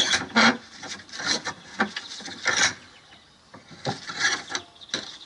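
Bench vise being wound closed on a spark plug: irregular short scraping and rubbing strokes of the vise screw and handle, with a brief lull about three seconds in.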